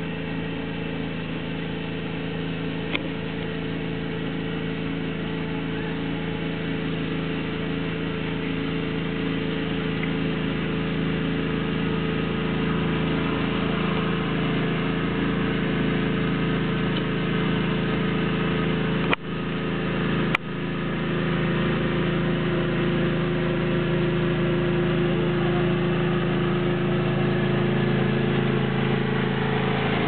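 John Deere riding lawn tractor's engine running steadily while it tows a loaded cart, growing gradually louder as it drives closer.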